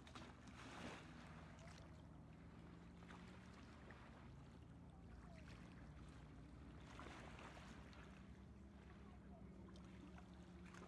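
Faint, steady low engine hum with quiet background noise.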